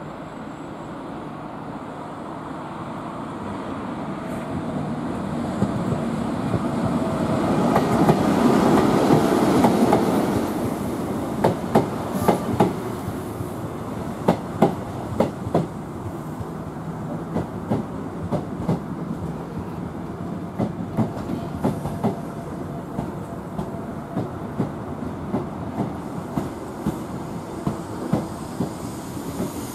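Loco-hauled electric passenger train of Mk3 coaches running past over pointwork. Its rumble builds to its loudest around eight to ten seconds in as the leading end goes by. Then the coaches' wheels click over the rail joints and points in quick pairs for the rest of the passage.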